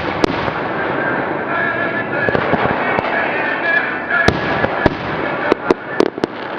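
Aerial fireworks shells bursting: a run of sharp bangs, several in quick succession in the second half, over a dense steady crackling wash.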